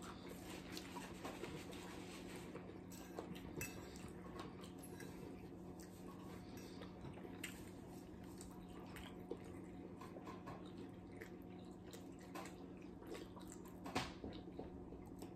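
Quiet table-eating sounds: faint scattered clinks of forks on plates and soft chewing, over a steady low hum. A slightly louder click about 14 seconds in.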